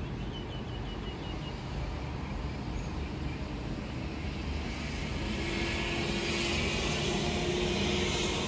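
An aircraft's engines rumbling overhead, swelling louder and hissier in the second half. A bird chirps quickly several times near the start.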